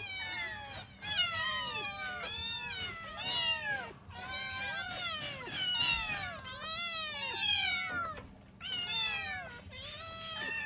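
Several young kittens meowing continuously, a rapid run of high, arched calls that often overlap, with a short pause about eight seconds in. They are crying for their mother.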